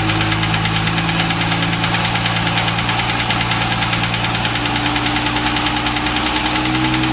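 MerCruiser 4.3LX GEN+ V6 inboard boat engine running steadily at a constant speed, heard close up in the open engine bay, with a fast, even ticking over the drone.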